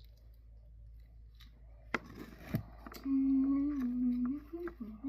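A child humming a few sustained notes, with a sharp click and a soft knock just before the humming starts.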